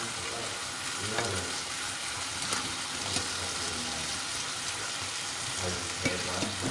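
Rump steak frying in a pan with asparagus and onion: a steady sizzle, with a metal fork clicking against the pan a few times as the food is moved around.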